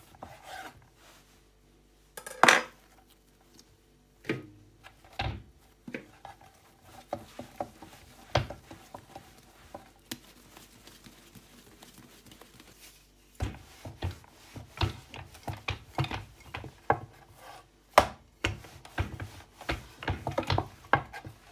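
A knife dividing bread dough on a wooden board, with sharp knocks of the blade and dough against the wood, the loudest a couple of seconds in. From about halfway on, a wooden rolling pin rolls the dough out, with a run of irregular knocks and rubbing on the board.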